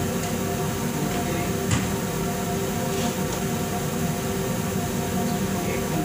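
A steady mechanical hum, with a few sharp plastic clicks and knocks as the washing machine's top panel is handled, the clearest about two seconds in.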